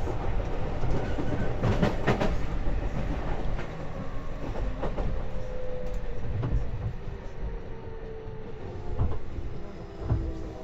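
JR Kyushu 813 series electric train heard from inside the car as it slows for a station: the traction motor whine falls steadily in pitch under braking, over the running rumble, with wheels clicking over rail joints.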